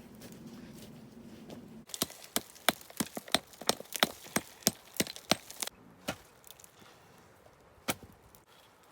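Wood being chopped with a blade: a quick run of about a dozen sharp strikes, roughly three a second, then two more single strikes.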